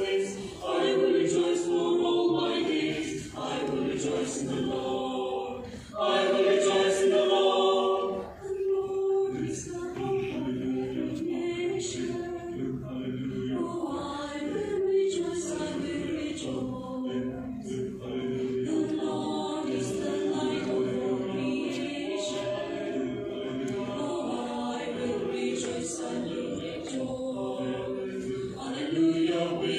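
Mixed choir of men and women singing a sacred choral piece in sustained chords, with a louder passage about six to eight seconds in.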